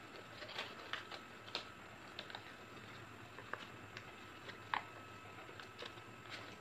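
A sheet of paper being folded and creased by hand: soft, irregular crackles and taps as the paper is bent and handled, with one sharper snap nearly five seconds in.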